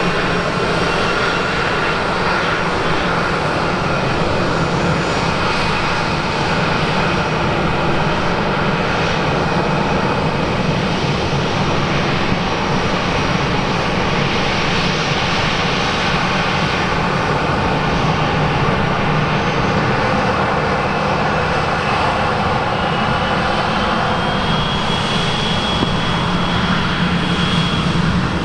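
Airbus A321 jet engines running at taxi power as the airliner rolls past, a steady loud jet rumble and whine. A thin high whine rises slightly about three-quarters of the way through.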